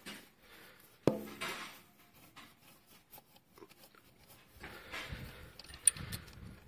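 Hand work on a wheel and its metal mount. About a second in there is a sharp metal clank with a brief ring, followed by scraping. Later comes more scraping and handling noise with a sharp click near the end.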